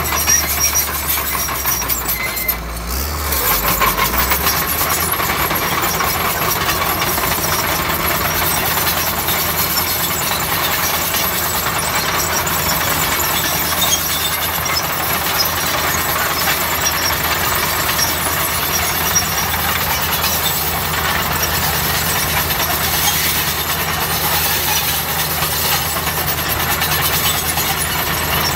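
Heavy diesel bulldozer engine running steadily under work, with the engine note dipping briefly about three seconds in.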